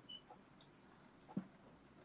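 Near silence: room tone, with a short faint high beep just after the start and a single faint click about one and a half seconds in.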